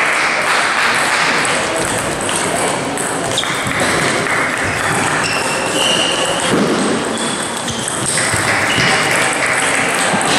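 Table tennis balls being hit and bouncing on tables across a hall with several tables in play: many overlapping, quick ball-on-bat and ball-on-table clicks.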